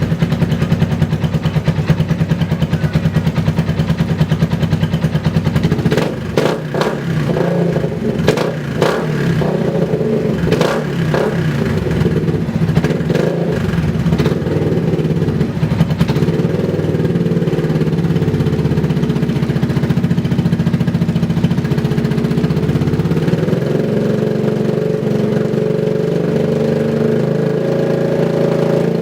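Yamaha Vixion's 150 cc single-cylinder engine running through an R9 Blue Monza aftermarket exhaust: a steady idle, then a stretch of throttle blips with sharp cracks from about six to sixteen seconds in, then an even run that rises a little near the end. The owner describes it as still coughing and stuttering.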